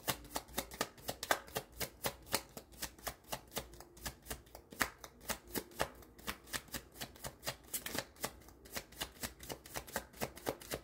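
A deck of tarot cards being shuffled by hand: a steady run of quick card clicks and slaps, about five or six a second.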